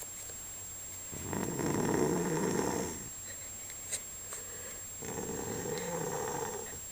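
A person snoring: two long snores, each lasting about two seconds, with a pause of a couple of seconds between them.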